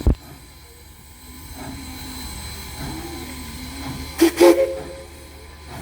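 Southern Railway 4501's steam whistle sounds in a brief double toot about four seconds in, over a steady low rumble. A sharp low thump comes at the very start.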